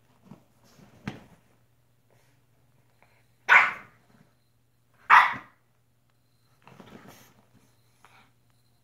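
French bulldog barking twice, about a second and a half apart, the two barks by far the loudest sounds. Quieter rustling of the blanket comes before and after as she burrows in the bedding.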